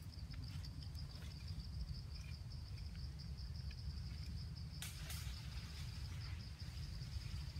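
Insects chirping in a steady high, finely pulsing trill, over a low rumble, with a brief rustle about five seconds in.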